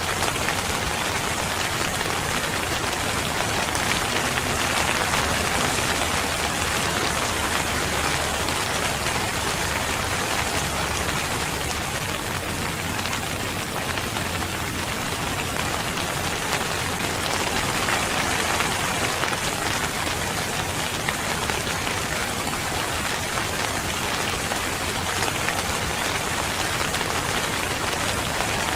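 Steady, even rainfall pattering on a surface.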